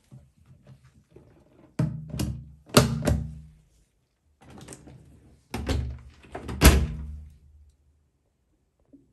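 Drum flaps and lid of a top-loading Electrolux washing machine being shut: two bunches of clicks and thunks about two and six seconds in, each with a brief metallic ring.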